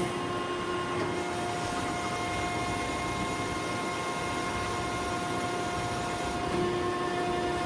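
Landis 3RH universal cylindrical grinder running with its hydraulics and grinding-wheel spindle on: a steady machine hum with a few steady tones over it.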